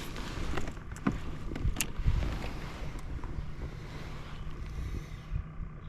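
Wind buffeting the microphone outdoors on the water, a noisy rush that swells and then dies down about three-quarters of the way through, with a few sharp clicks and knocks in the first two seconds.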